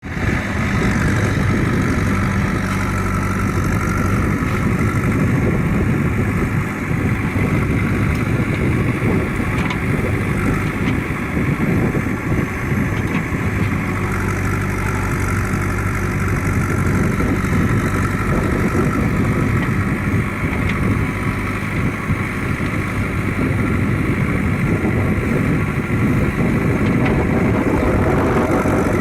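JCB backhoe loader's diesel engine running steadily, its note shifting a little from time to time as the machine works.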